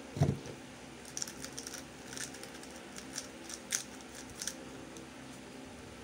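A thump about a quarter second in, then light plastic clicks in short clusters as the layers of a MoFang JiaoShi MF3RS2 3x3 speedcube are turned.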